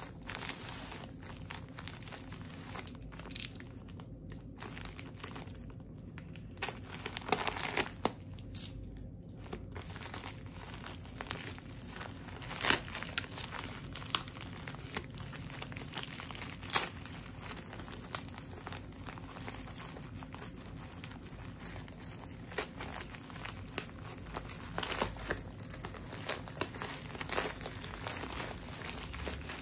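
Packaging crinkling and rustling as a parcel is handled and unwrapped by hand, with irregular sharp crackles. The loudest snaps come about 13 and 17 seconds in.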